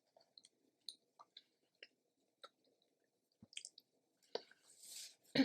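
Close-up mouth sounds of someone eating chicken orzo soup: small wet clicks of chewing, a breathy rush of air about four and a half seconds in, and a sharp knock right at the end.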